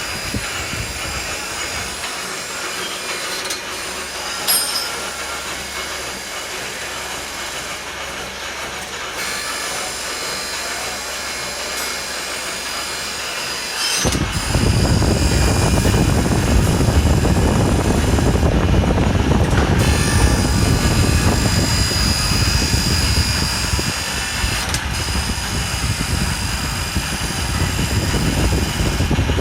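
Surface grinder running: a steady machine noise with several high whining tones, which suddenly becomes louder and heavier about halfway through and stays that way.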